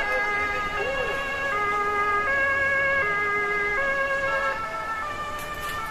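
Two-tone police siren, stepping back and forth between a high and a low note about every three-quarters of a second, over a low steady rumble.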